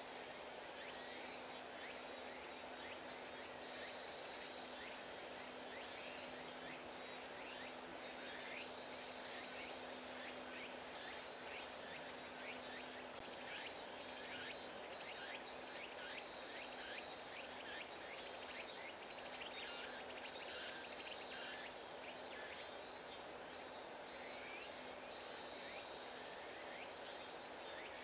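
Outdoor ambience of insects chirping in repeated pulsing trills, over a faint steady low hum that stops about halfway through.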